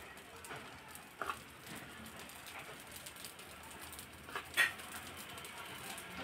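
A small metal spoon tapping lightly against an appe pan as idli batter is spooned into its cups: a light tap about a second in and a sharper clink around four and a half seconds in.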